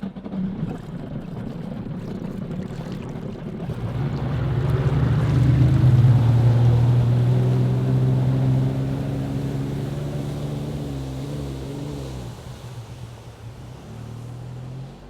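Jet ski engine running over water. It grows louder to a peak about six seconds in, then fades away, its pitch dropping near the end.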